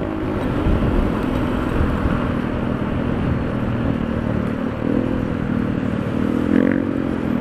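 Honda Beat 110 FI scooter running at steady road speed, its engine drone mixed with wind rush over the handlebar-mounted microphone. Faint pitched engine notes rise out of the drone briefly about five and six and a half seconds in.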